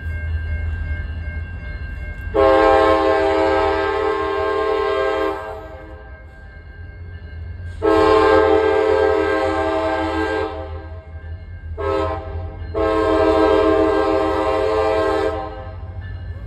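CSX freight locomotive's multi-chime air horn sounding the grade-crossing signal: two long blasts, a short one and a final long one, each a chord of several steady notes, while approaching the crossing. A low, steady rumble from the train runs underneath.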